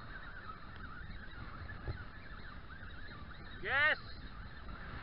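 A flock of birds calling in a steady chorus, with one louder call from a nearer bird about three and a half seconds in.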